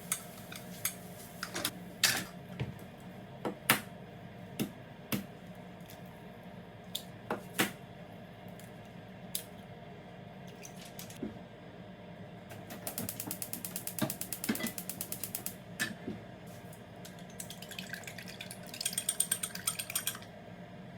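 Kitchen utensil sounds: scattered knocks and clinks, then two runs of fast, even tapping, the second one brighter and sharper.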